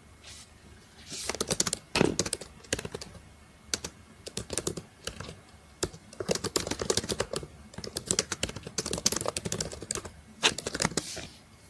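Typing on a laptop keyboard: quick runs of keystrokes with short pauses between them.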